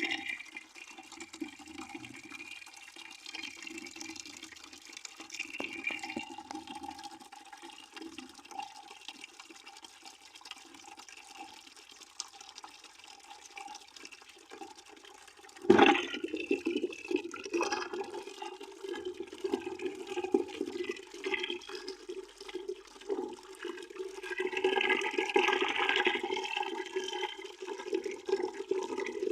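Water running from a tap into a bucket in a steady stream, with a hollow ringing note from the bucket. About halfway through there is a sudden jump in level, and the stream goes on louder after it.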